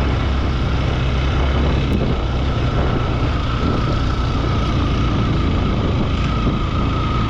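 Motorcycle running steadily on a ride, its engine mixed with heavy wind rumble on the rider's microphone and a steady high whine.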